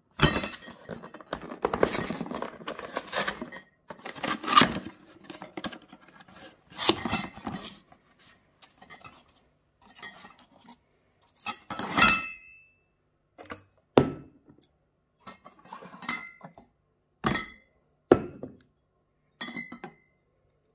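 Cardboard gift box handled and opened for the first few seconds, then glass beer bottles clinking against each other in their cardboard dividers as they are lifted out. There is a series of separate sharp clinks, several of them ringing briefly.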